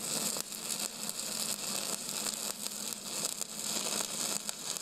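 Electric welding arc burning: a steady crackling hiss, full of small pops.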